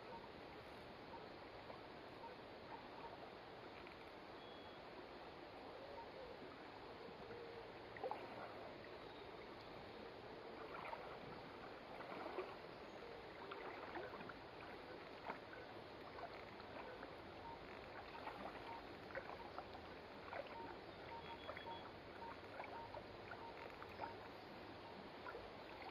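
Faint, steady flow of a shallow river, with scattered small clicks and splashes from people wading and digging in it.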